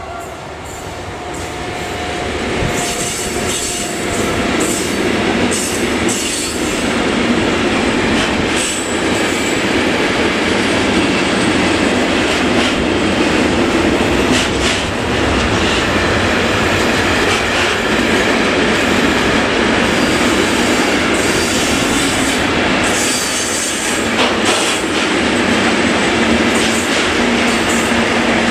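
Electric-hauled container freight train passing close by: a steady loud rumble and clatter of the wagons' wheels on the rails, building over the first few seconds as the locomotive comes past, with scattered clicks from wheels over rail joints.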